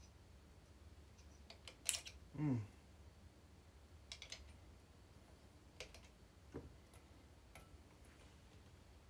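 Scattered light clicks and taps of small parts being worked by hand into place on the clutch side of a Stihl 029 chainsaw while the oil pump drive is fitted, over a low steady hum. A sharp click about two seconds in is followed by a short sound falling in pitch.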